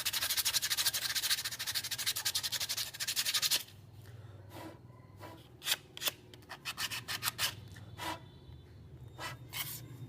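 Sandpaper rubbed fast back and forth over the cut end of a bamboo tube, smoothing off the rough edge left by the saw. The rapid, even strokes stop abruptly about three and a half seconds in, followed by scattered light clicks and taps.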